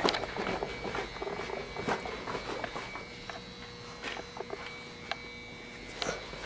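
Footsteps walking on a hard floor: irregular scuffs and small knocks that thin out midway and pick up again near the end, over a faint steady high-pitched whine.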